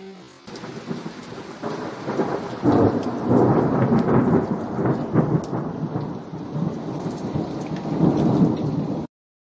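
Thunder rumbling through steady rain, swelling a few seconds in and again near the end before cutting off abruptly.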